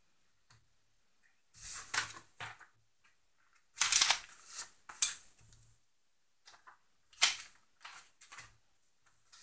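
Sheets of paper and a plastic document folder rustling and crackling as they are gathered up and shuffled on a desk, in several short bursts with pauses between, the loudest about four seconds in.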